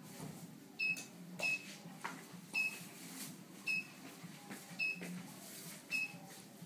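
Red vein removal machine beeping: short, high-pitched beeps about once a second as its needle handpiece works on the skin.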